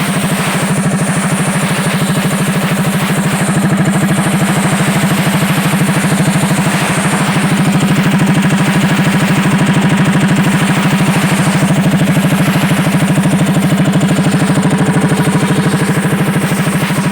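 Mahindra Yuvo 575 DI tractor's four-cylinder diesel engine running steadily at constant speed with a fast, even beat, driving a tractor-mounted air compressor.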